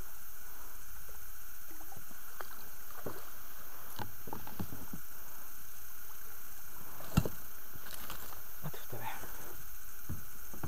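Water splashing and sloshing at the side of the boat as a hooked pike is led into a landing net and lifted aboard, with one sharp knock about seven seconds in.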